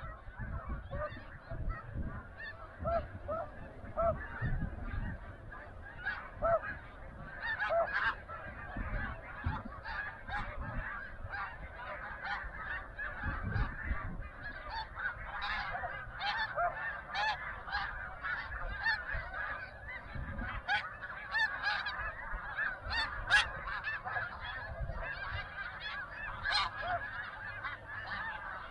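A large flock of snow geese calling: a dense chorus of many overlapping short, high honks that never lets up.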